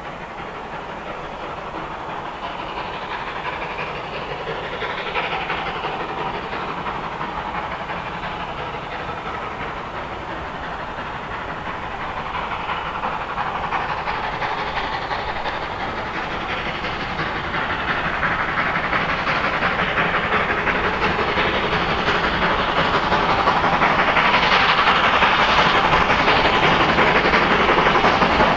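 Hunslet 0-6-0 tank engine No. 3781, a steam locomotive, working hard with its train. Its exhaust grows steadily louder as it approaches.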